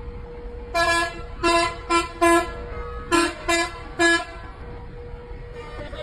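A bus's telolet horn sounding seven short blasts in two quick phrases, four then three, with a pause of under a second between them.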